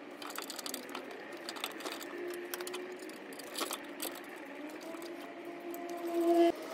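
Clicks and light metallic clinks of hand tools and hardware as a replacement alternator is fitted and bolted into a Chevy Silverado's engine bay, over a steady humming tone that grows louder near the end.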